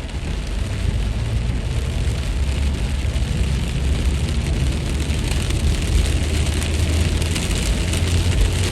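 Heavy rain falling steadily, with a deep low rumble that builds about two seconds in and carries on under the rain.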